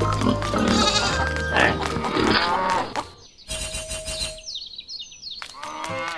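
Background music with a bleating animal sound effect laid over it in the first few seconds. The music drops out briefly about halfway through, followed by a short sound effect with falling pitch sweeps.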